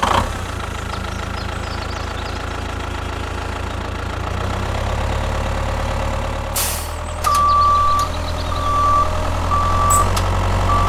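Tractor engine running steadily, as an added sound effect, then a reversing alarm beeping about four times in the second half as the tractor backs up to hitch a trolley. A short hiss comes just before the beeps.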